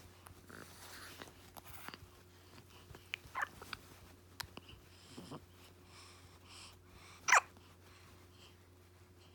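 Baby hiccuping: three short, separate hiccups a second or two apart, the last and loudest near the end.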